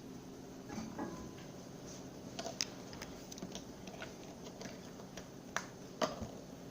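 Slime being squeezed and played with by hand, giving irregular small clicks and pops, a few of them sharper.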